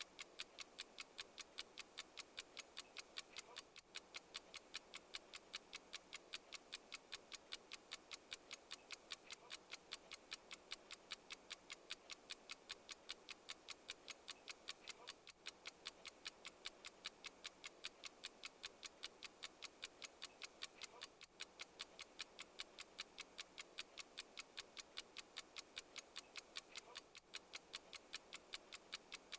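Mechanical clock ticking in a steady, even tick-tock rhythm, sharp clicks several times a second.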